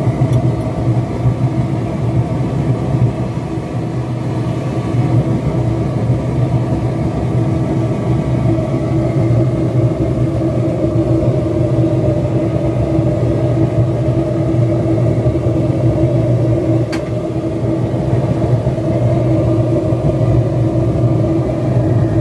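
Homemade propane forge running, its propane burner blown by a hairdryer: a loud, steady rumble with a constant hum. One sharp click late on.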